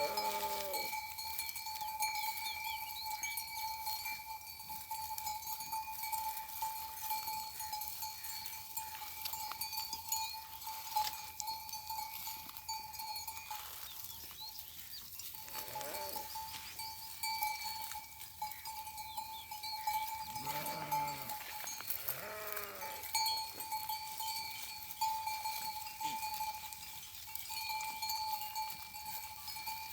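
A flock of sheep and goats bleating now and then, about five calls, while the bells on the grazing animals clink irregularly. A steady high tone sits underneath.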